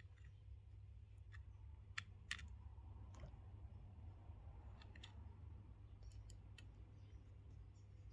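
Faint, scattered clicks and taps of small speaker parts being handled, with the sharpest pair about two seconds in, over a low steady hum.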